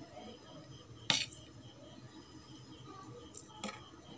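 Kitchen tongs clinking against a dish while picking up French fries: one sharp clink about a second in and two lighter ones near the end.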